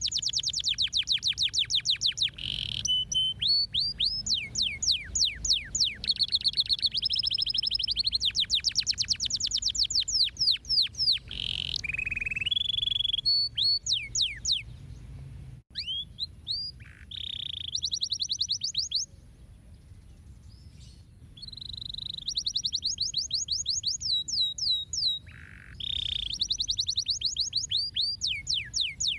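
Domestic canary singing: fast trills of rapidly repeated notes and short falling whistles, phrase after phrase, with a lull of about two seconds about two-thirds of the way through.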